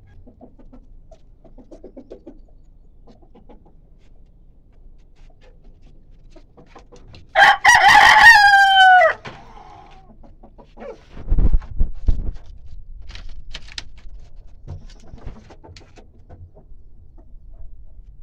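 A rooster crows once, a single crow of about two seconds that starts about seven seconds in and drops in pitch at its end. A few seconds later come dull low thumps, with soft clucks from hens around them.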